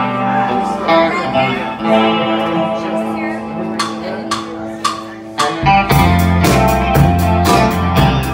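Live rock band: an electric guitar holds sustained notes with a few drum taps, then a bit over halfway through the bass guitar and drum kit come in and the full band plays with a steady beat.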